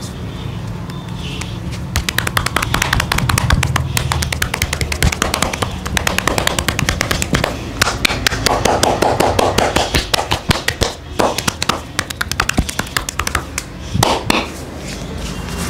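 Hands rapidly tapping and slapping on a person's upper arm in a percussive massage, many quick strikes a second. The tapping starts about two seconds in and stops near the end, followed by a few single slaps.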